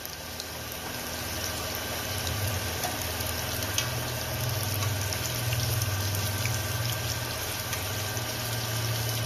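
Potato cheese balls deep-frying in hot oil: a steady sizzle with many small crackles, over a low steady hum that grows louder about two seconds in.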